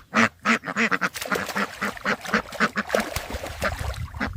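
Ducks quacking, a fast run of short calls about four a second.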